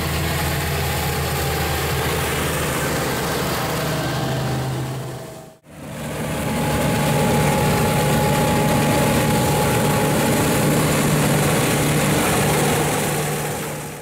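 A Massey Ferguson tractor's diesel engine runs steadily as it pulls a trailer over stubble. It cuts off briefly about five and a half seconds in. After that, a Claas Dominator 88S combine harvester runs steadily while harvesting wheat, and the sound fades out near the end.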